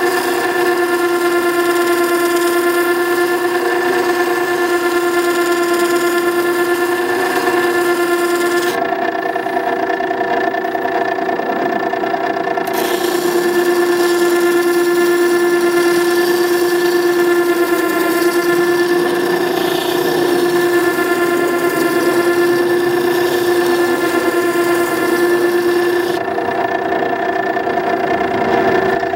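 Makita 9820 electric water-stone sharpener running with a steady hum while a chisel's bevel is ground freehand on its turning wheel. The tone shifts abruptly a few times.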